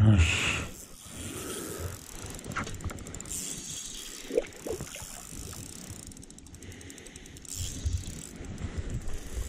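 Spinning fishing reel being cranked to reel in a hooked fish, its gears giving off a fine, rapid ticking.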